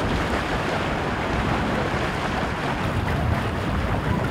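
Wind buffeting the microphone, a steady low rumble over a wash of waves.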